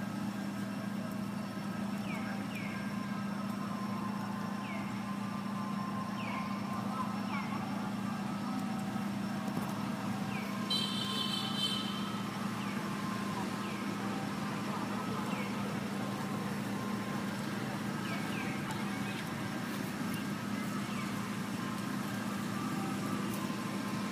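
Steady background drone with a constant low hum, faint short chirps every second or two, and a brief high-pitched call about eleven seconds in.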